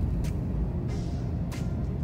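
A car's engine and tyres rumbling low and steady, heard from inside the cabin as it drives slowly, with a few brief hissing sounds; the sharpest comes about one and a half seconds in.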